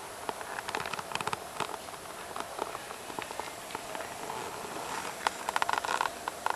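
Kelvin water-droplet generator running: water drops pattering and clicking irregularly into its metal collector cans, the taps bunching up about a second in and again near the end.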